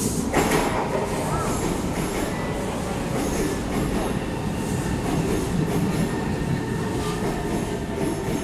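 Kawasaki C151 metro train pulling into an elevated station platform, its wheels rumbling on the rails as the cars run past, loud from about half a second in. A thin steady whine runs over the rumble.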